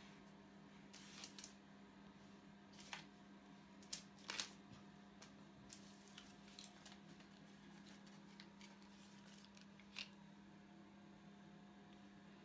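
Near silence: a steady low hum with a few faint, short clicks and taps, the loudest about four seconds in and another near ten seconds.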